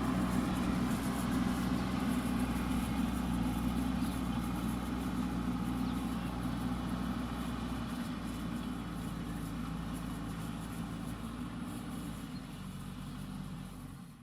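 Diesel engine of a JCB backhoe loader running steadily, gradually getting quieter.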